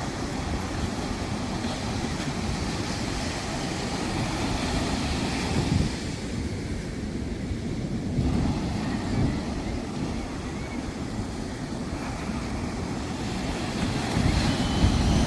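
Sea waves washing onto a sandy beach, with wind rumbling on the microphone. The wash swells about halfway through and again near the end.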